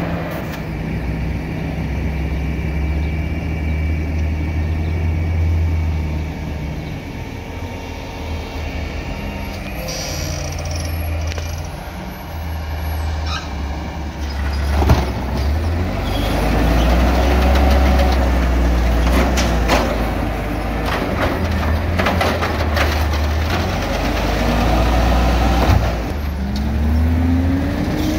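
Engines of two automated side-loader garbage trucks running and moving, the low rumble swelling and easing as they pull along, with a short hiss of air about ten seconds in and a sharp knock about five seconds later.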